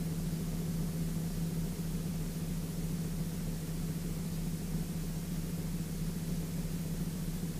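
Sling 2 light aircraft's piston engine and propeller droning steadily in cruise: a constant low hum with an even hiss of noise over it.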